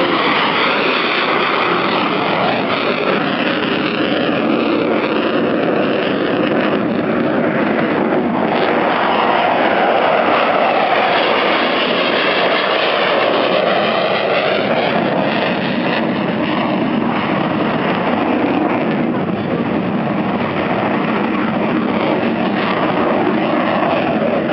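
Military jet taking off and climbing away, its engine noise loud and steady. A slow whooshing sweep up and down in pitch comes through the middle as it passes.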